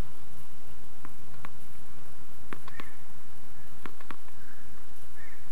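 A tennis ball bounced on a hard court before a serve: short, sharp taps, about six, in loose pairs roughly every second and a half, over a steady hiss.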